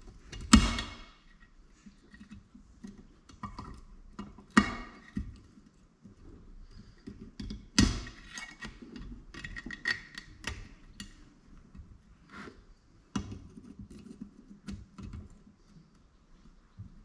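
Metal clanks and clicks from fitting a circlip and bearing onto a steel shaft. Three sharp, ringing metal strikes stand out, about half a second, four and a half and eight seconds in, among many smaller ticks and taps of tools on steel.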